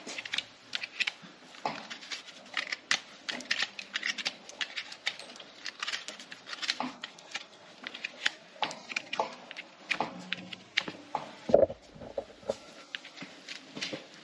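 Hoof-trimming tools working a draft horse's hoof: a run of irregular sharp clicks and scraping cuts, several a second, with one louder thump about two-thirds of the way through.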